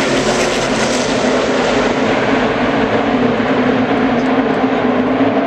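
The engines of a full field of NASCAR stock cars running together at racing speed: a loud, steady, unbroken din of many V8s at once.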